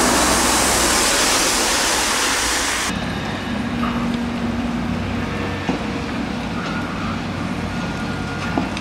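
Heavy dump truck passing on a wet road: its engine running under loud tyre hiss from the wet asphalt. About three seconds in the sound cuts abruptly to a quieter low hum with faint clicks and a few brief tones.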